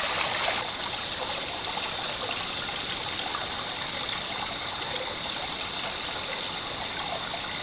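Small stream running steadily over rocks in a little cascade.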